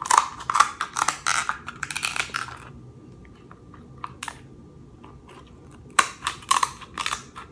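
King crab legs being cracked and eaten close to the microphone: quick, crisp crackling clicks in two spells, with a pause of about three seconds between them broken by a single click.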